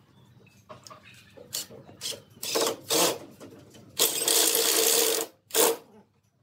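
Cordless drill driving screws into wood: a few short trigger pulls, then a steady run of just over a second, then one more short burst near the end.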